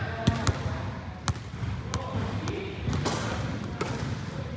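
Basketball bouncing on a hard gym floor: about six or seven sharp bounces at uneven intervals.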